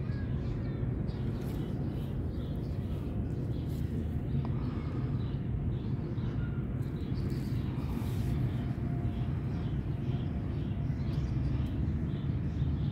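Outdoor ambience: a steady low rumble with faint bird chirps.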